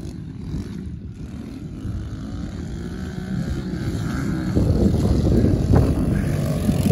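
Kawasaki KLX110 pit bikes, small four-stroke single-cylinder engines, revving as they race. The sound grows louder as a bike comes up close through a turn, with a step up about four and a half seconds in.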